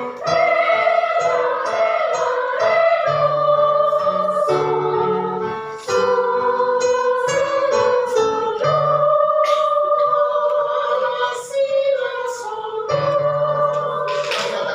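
Children's choir singing a song in unison, with sustained low instrumental accompaniment notes underneath.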